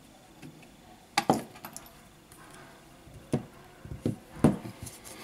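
A OnePlus 7T's glass back cover clicking and knocking against the phone's frame and the work surface as it is handled and fitted in place: a sharp tap about a second in, then a cluster of three or four near the end, the last the loudest.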